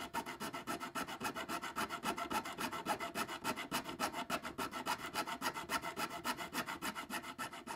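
Bare hacksaw blade, held in the hands, sawing in quick, even back-and-forth strokes through the protruding end of a metal threaded insert to cut it flush with the plywood.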